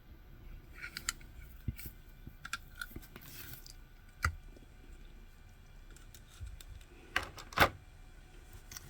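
Scattered small clicks, taps and rustles of a 1:64 diecast toy car and its plastic packaging being handled. There is a sharper knock about four seconds in and two louder clicks near the end.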